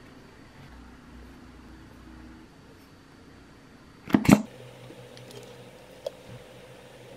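Low steady hum with faint spoon-on-glass clicks as a seasoning sauce is worked in a small glass bowl. About four seconds in comes a loud double knock, then the hum continues more evenly.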